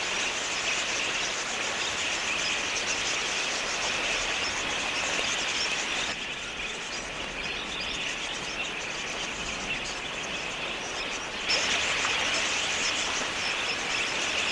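A large flock of wild budgerigars chattering: a dense, steady mass of high-pitched chirps and warbles. It thins a little about six seconds in and comes back louder abruptly near the end.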